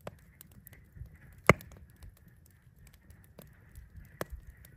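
Wood fire crackling in a fire pit, with a few sharp pops, the loudest about a second and a half in.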